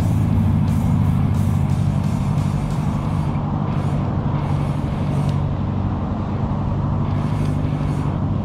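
Steady, loud rumble of road traffic that holds throughout without a break.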